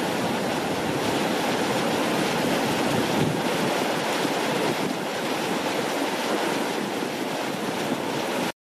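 Steady rushing of a creek running over rocks, cutting off suddenly near the end.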